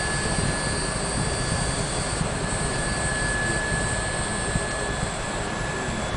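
Distant steady low rumble of Space Shuttle Endeavour's rocket motors climbing to orbit, heard from miles away, with a faint steady high whine over it.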